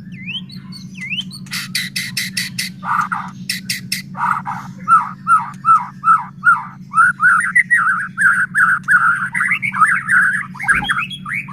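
White-rumped shama (murai batu) singing: a few rising whistles, then dry rattling 'kretekan' runs, a string of short repeated notes about three a second, and a long fast warbling phrase near the end. A steady low hum lies underneath.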